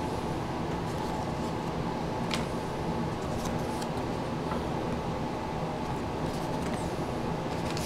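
Steady mechanical hum, like a fan or air conditioner running, with a few faint light ticks of baseball cards being handled.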